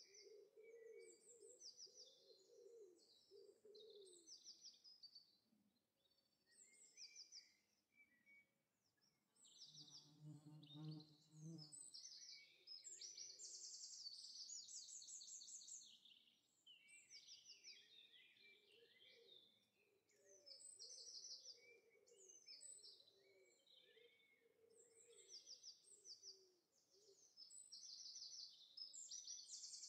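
Faint birdsong ambience: many short high chirps and trills repeating throughout, with lower warbling calls underneath. A brief low pitched call comes about ten seconds in.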